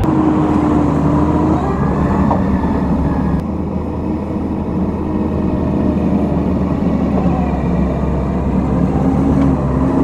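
Diesel engine of a Kubota compact track loader running hard while the machine pushes and grades dirt with its bucket. The engine note holds steady, dipping slightly about two seconds in and climbing again near the end.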